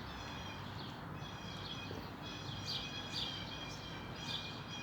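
Small birds chirping, a series of short high calls repeating every half second or so, over steady outdoor background noise.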